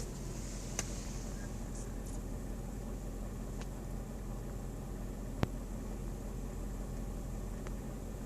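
A Mercedes-Benz W163 M-Class making a steady low hum, broken by four short sharp clicks at uneven spacing, the loudest about five and a half seconds in: the weird, unexplained sound from the vehicle.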